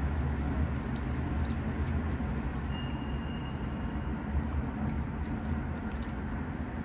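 Faint clicks and smacks of a person eating chicken and rice with their fingers, over a steady low background hum. A brief faint high tone sounds about three seconds in.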